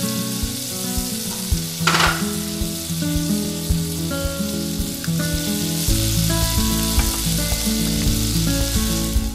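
Butter, then an egg and sausages, sizzling as they fry in a nonstick wok, with a steady hiss. A brief louder hiss comes about two seconds in.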